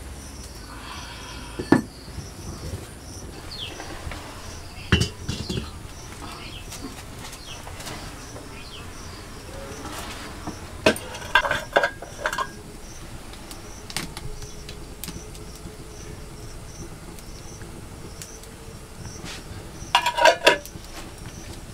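Metal pots and utensils knocking and clinking a few times at a wood-fired clay stove, two clusters of the clinks ringing, near the middle and near the end. Crickets chirp steadily and high-pitched behind them.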